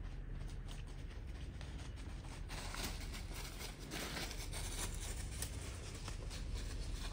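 Deer hooves crunching and rustling through dry fallen leaves as deer run past, a quick run of crackles that thickens and gets louder from about two and a half seconds in to about five seconds.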